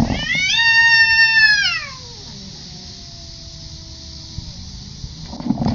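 A cat giving one long, loud yowl that falls in pitch at its end after about two seconds, followed by a quieter, low drawn-out moan: a distress call for help.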